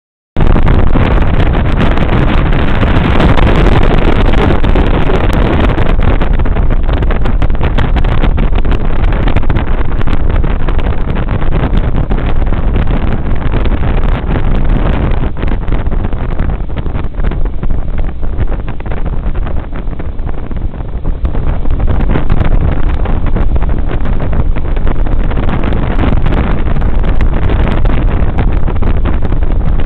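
Motorboat running at speed on open water, its engine noise mixed with rushing water and heavy wind buffeting the microphone. The noise is loud and steady, dipping a little around the middle.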